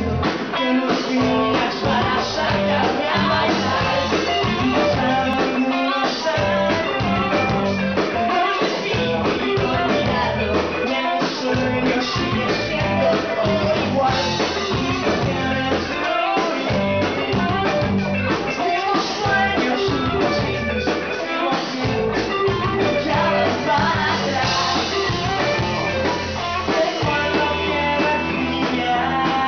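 Rock band playing live: electric guitars and a drum kit, loud and continuous.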